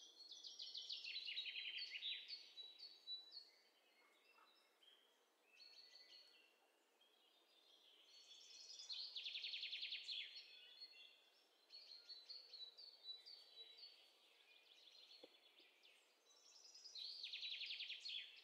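Faint recorded birdsong: songbirds chirping, with three rapid trills about eight seconds apart and quieter chirps between them.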